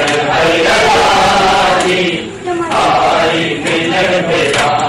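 A crowd of men chanting loudly in unison, with a brief dip in the chant a little after two seconds in and a few sharp smacks near the end.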